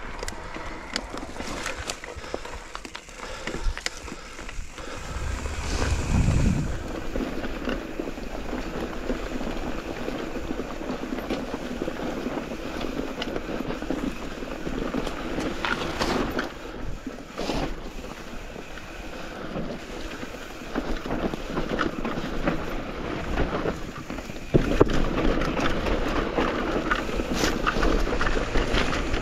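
Wind buffeting the microphone over the rolling noise and rattle of a mountain e-bike on a trail, with several sharp knocks as the bike jolts over bumps.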